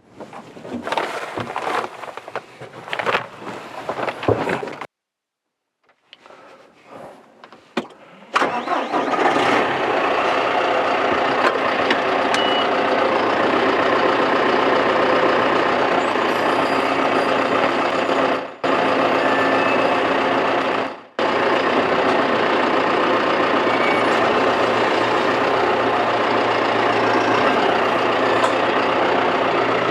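Clunks and handling noises for a few seconds, then about eight seconds in the John Deere tractor's diesel engine starts and runs steadily, now on a replacement for its dead battery.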